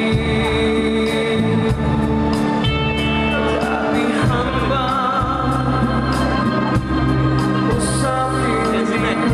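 Music with a singing voice over held chords and a bass line that changes note every second or so.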